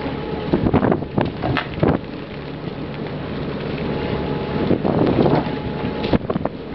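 Wind buffeting the microphone over water rushing and splashing along a small fishing boat's hull, with a steady hum from the boat underneath; louder surges of splashing come about a second in and again near five seconds.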